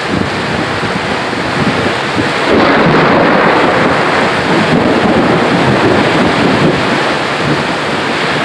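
Heavy rain and gusting wind of a thunderstorm downpour: a loud, steady rushing that grows a little louder about a third of the way in and eases near the end.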